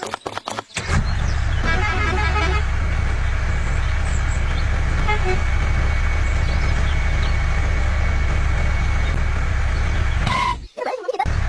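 Steady low rumble of a running motor vehicle engine, dropping out briefly near the end.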